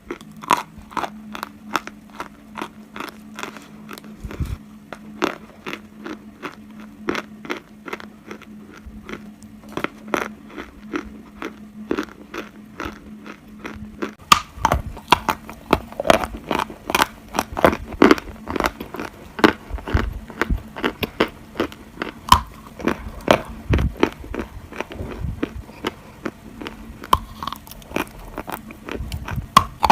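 A person biting and chewing dry edible clay: a rapid, continuous run of sharp crunches, growing denser and louder from about halfway. A faint steady hum sits under the first half and stops.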